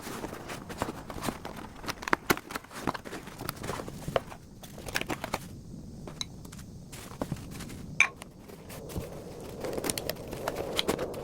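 Irregular clicks, knocks and light rustling of household objects being handled, with one sharper knock about eight seconds in and a fuller rustling noise near the end.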